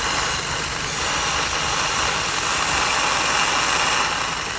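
Jeep Patriot's four-cylinder engine idling roughly and unevenly, with a steady hiss over it. The idle is rough enough to shake the engine violently, which the owner suspects comes from a vacuum leak.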